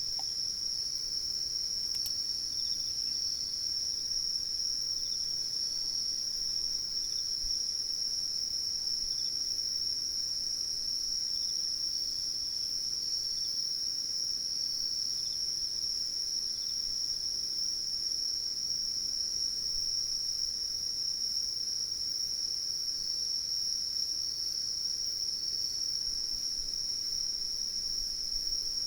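Insects trilling: one steady high unbroken trill, with fainter short chirps repeating below it.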